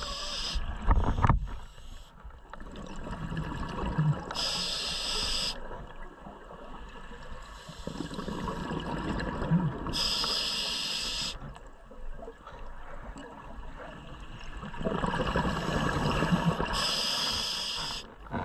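A scuba diver's regulator breathing underwater: a hissing inhalation four times, about every six seconds, each just over a second long, with the lower bubbling rush of exhaled air in between, while the diver swims against the tide.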